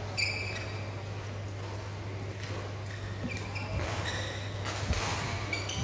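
Badminton rally: athletic shoes squeaking in short high chirps on the synthetic court mat, with a couple of sharp racket strikes on the shuttlecock about four and five seconds in, over a steady low hum.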